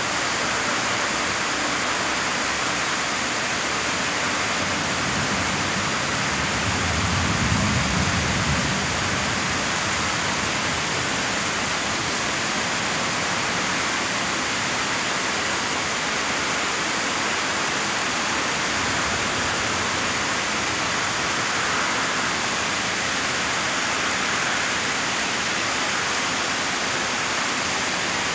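Rain pouring steadily, a dense even hiss. A low rumble swells briefly about seven seconds in.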